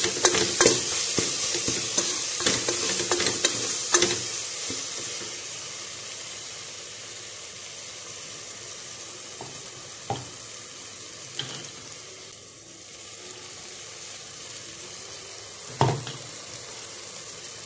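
Tempering spices frying in hot oil in a metal pot, with a sizzle and crackle, and a wooden spoon stirring and scraping against the pot. The sizzle and clatter are busiest for the first four seconds, then die down to a faint hiss broken by a few single spoon knocks.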